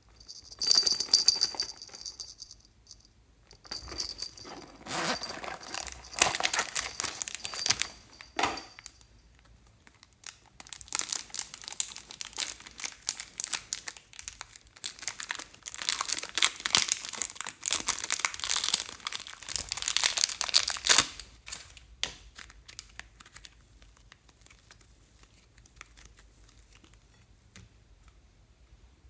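Thin plastic packaging crinkling and tearing in long bursts as a block of soft modelling clay is unwrapped. Near the start, a small metal bell on a coin purse jingles.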